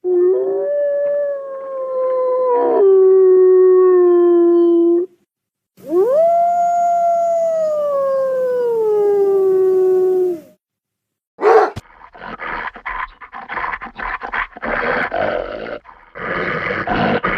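Wolf howling as a sound effect: two long howls, the first level with a step down in pitch partway through, the second rising and then sliding slowly down, followed by a run of short, rough, noisy calls over the last several seconds.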